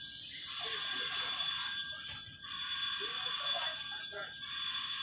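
Steady high-pitched electrical whine from a metro train's onboard equipment while the train stands at a station, dropping out briefly a little over two seconds in. Faint platform sounds underneath.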